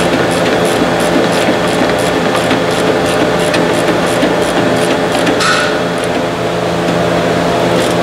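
Steady mechanical hum of background machinery, with a light, regular ticking about three times a second over it and one sharp click about five and a half seconds in.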